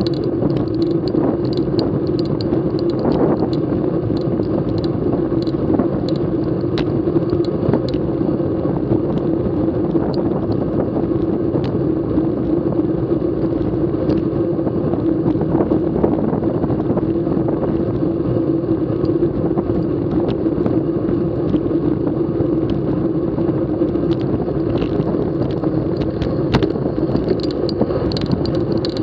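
Racing bicycle rolling fast on asphalt: a steady rumble of tyre and road noise and frame vibration, with scattered light clicks and rattles.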